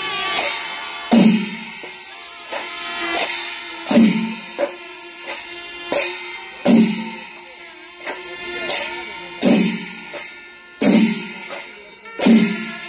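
Kerala chenda melam: temple drums beaten with sticks in a slow, even beat with cymbals, a stroke a little faster than one a second and the heaviest about every three seconds.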